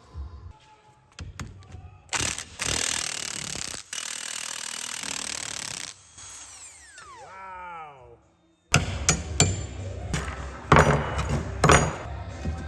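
A power tool runs for about four seconds and then winds down, its pitch falling as it coasts to a stop. Several sharp metallic knocks and clanks follow near the end.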